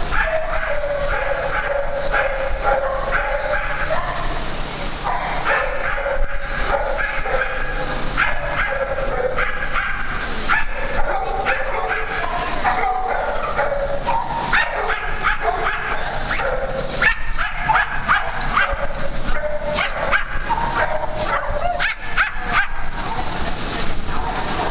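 Dogs barking and yipping at play, many short calls in quick succession.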